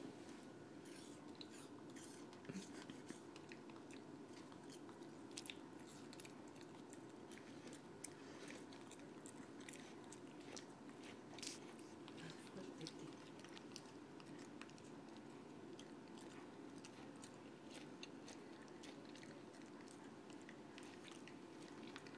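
A 12-week-old Bichon Frise puppy chewing and crunching pieces of apple: faint, irregular crunchy clicks throughout, over a steady background hum.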